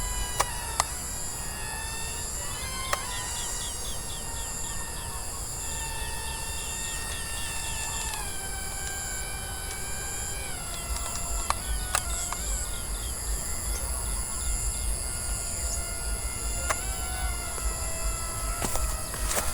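Electric motor of a remote-controlled model plane whining, its pitch dropping in steps several times. A steady high insect trill sounds over it.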